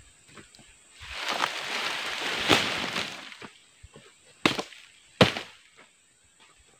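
Two sharp machete chops into oil palm material, less than a second apart, after a couple of seconds of loud rustling and crunching of dry palm fronds and leaf litter.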